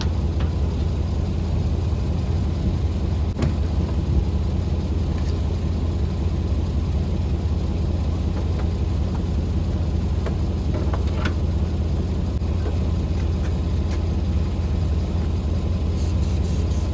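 A car engine idling steadily, a constant low hum with a few faint ticks.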